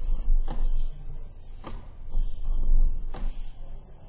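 Hobby servo motors of a small eight-servo quadruped walking robot whirring in surges as it steps through a right turn. Three sharp taps, about a second and a quarter apart, as its metal feet come down on the tabletop.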